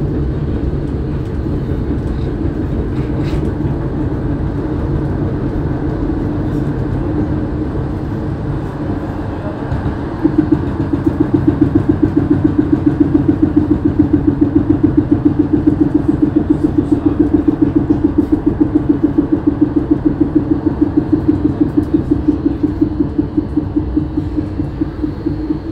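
MVB NGT8D tram standing with its onboard equipment running in a steady hum. About ten seconds in, a louder hum sets in that pulses rapidly, several beats a second.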